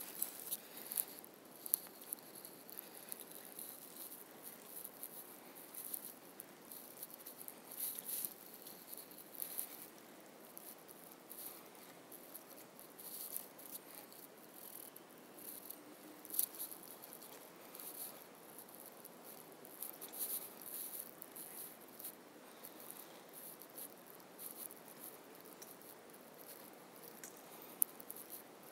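Faint, irregular crackling and ticking over quiet room tone, with a couple of sharper clicks, one a couple of seconds in and one near the end.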